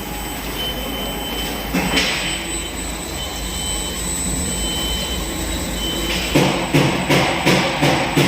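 Steady mechanical hum from a CNC saw-blade side-grinding machine. About six seconds in, a regular series of short mechanical pulses starts, roughly three a second.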